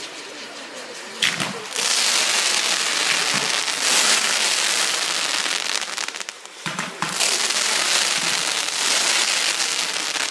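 Fireworks going off: a sharp crack about a second in, then a long, loud hissing and crackling as shots with glowing tails rise. The hiss breaks off briefly before seven seconds, another crack comes, and the hissing and crackling runs on again.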